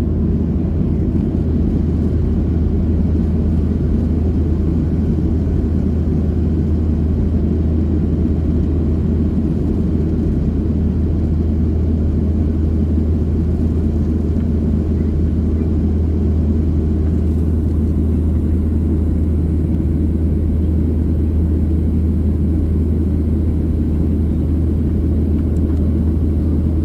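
Steady low rumble of a jet airliner heard from inside the passenger cabin in flight: engine and airflow noise, even and unbroken, cutting off at the very end.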